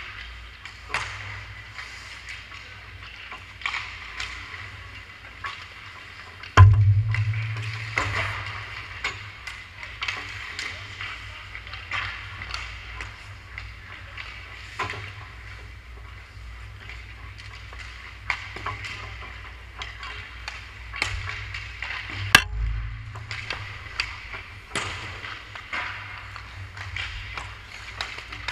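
Ice hockey play in an echoing rink: stick and puck clacks and skate blades scraping the ice, over a steady low hum. Two hard hits close by, about six and a half and twenty-two seconds in, are much louder than the rest and carry a low boom.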